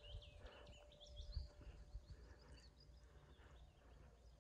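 Near silence with faint songbird song: short, repeated high chirps in quick runs that fade out after about two and a half seconds, over a faint low rumble.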